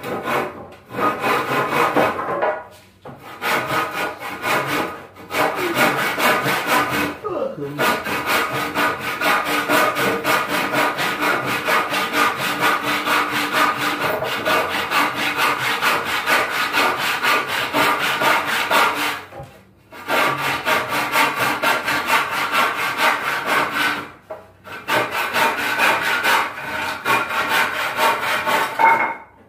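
A saw cutting through a wooden board in several long runs of fast, steady strokes, with brief pauses between runs.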